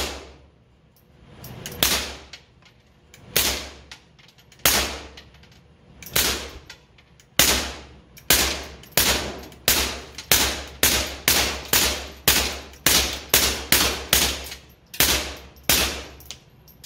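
A Taurus TX22 .22 LR pistol fitted with a SilencerCo Sparrow suppressor fires a magazine of about twenty suppressed shots of high-velocity ammunition. The shots are spaced a second or more apart at first, then come at about two a second.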